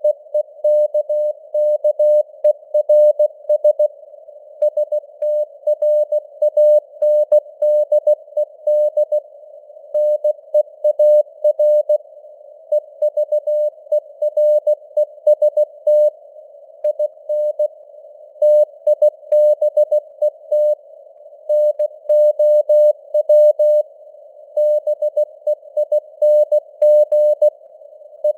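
Synthesized Morse code (CW) sent at 16 words per minute: a single mid-pitched tone keyed on and off in dots and dashes, with short pauses between words. It sits in a narrow band of simulated receiver hiss, and its strength rises and falls as simulated fading (QSB).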